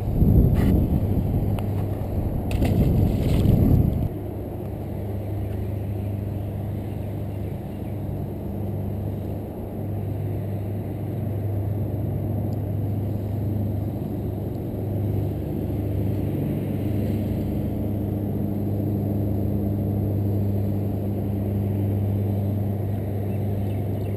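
Loud, uneven rumbling with a few clicks for about four seconds, then a steady low engine hum that runs on unchanged.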